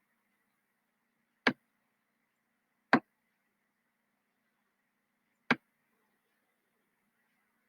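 Three sharp computer mouse clicks: two about a second and a half apart, then a third after a gap of about two and a half seconds.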